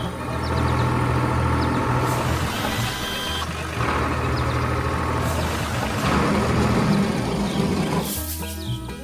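Truck engine running steadily, with three short bursts of air hiss about 2, 5 and 8 seconds in.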